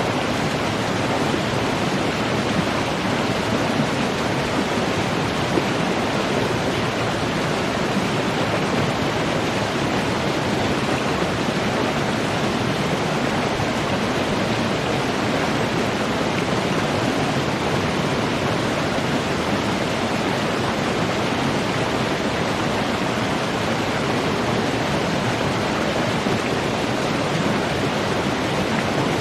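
Running water rushing steadily and evenly, with no breaks or changes.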